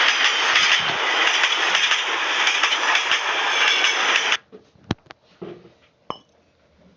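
Train running past with a loud, steady rushing noise that cuts off suddenly about four seconds in, leaving near quiet with a couple of sharp clicks.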